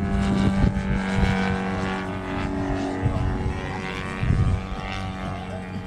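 Engine of a radio-controlled Christen Eagle model biplane running steadily in flight, its pitch sliding slightly lower and getting gradually quieter as it flies away. Gusts of wind rumble on the microphone.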